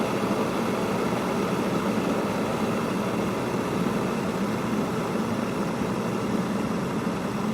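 Kettle heating water: a steady low rumble and hiss, with no whistle.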